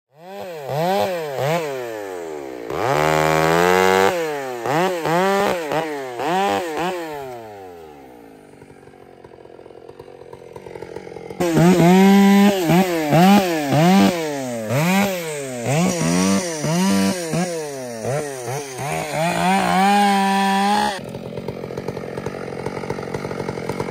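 Stihl chainsaw running under load, its engine pitch rising and falling over and over, about three times every two seconds. It fades for a few seconds in the middle and comes back suddenly, and near the end it turns to a rougher, steadier buzz.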